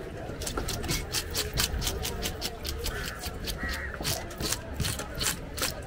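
Hand fish scaler scraping the scales off a whole fish on a wooden board, in quick, even strokes, about six a second.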